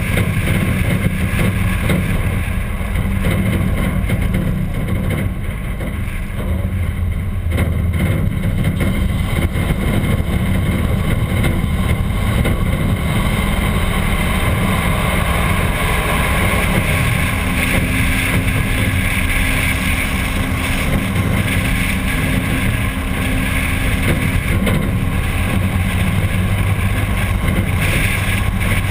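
A 1951 Packard's straight-eight engine running steadily, heard through a hood-mounted camera's microphone with wind noise on it.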